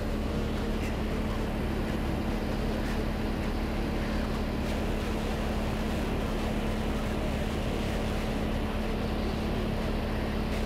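Cessna 182's piston engine and propeller droning steadily in cruise, heard from inside the cabin, with one strong held note under a constant hum.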